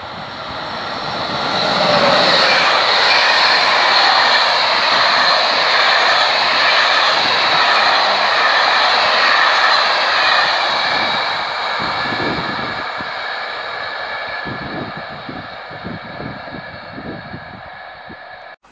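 A Corail passenger train hauled by an SNCF BB 22200 electric locomotive passing at speed. The rush of rolling noise swells over about two seconds, stays loud, then slowly fades, with a run of low knocks in the last few seconds before it cuts off abruptly.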